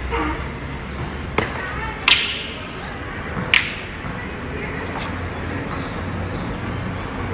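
Wooden kung fu staff wielded in a traditional Cha Quan staff form, giving a few sharp cracks about a second apart; the loudest comes about two seconds in and a fainter one near the five-second mark. A steady low rumble runs underneath.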